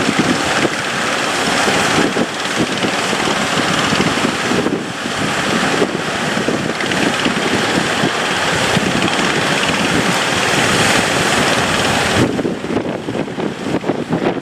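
Boat at sea in rough water: wind buffeting the microphone over rushing, splashing waves and a running engine. The high hiss thins out about twelve seconds in.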